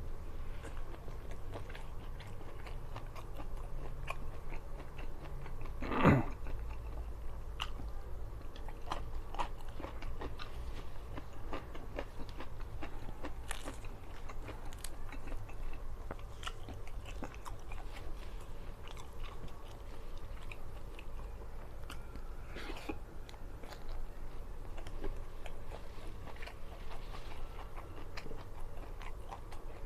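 A person chewing and biting food with crunching, a mukbang close to the microphone, with many small clicks throughout. There is one louder knock about six seconds in.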